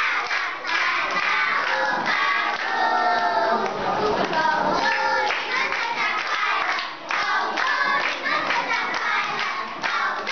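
A group of young children singing together and clapping their hands, the claps sharp and frequent throughout.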